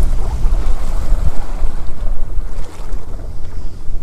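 Gusty wind buffeting the microphone in a loud low rumble that swells and drops, over the wash of sea waves.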